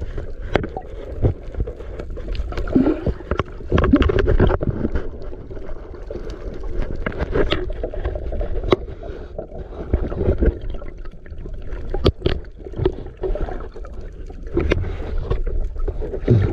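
A small fishing boat at sea: water sloshing and gurgling against the hull under a steady low rumble, with scattered sharp knocks.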